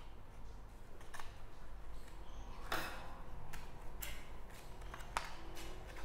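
Foil lure sachets and a plastic trap box being handled on a table, giving a few scattered sharp clicks and crinkles, the loudest about two and a half seconds in.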